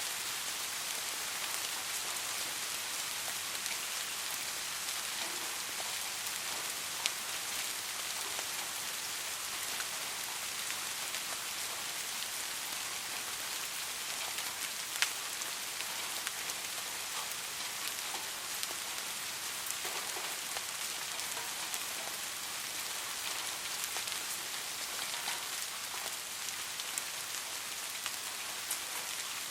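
Soft, steady rain falling on a surface, a constant even hiss with scattered individual drops ticking, one a little louder about halfway through.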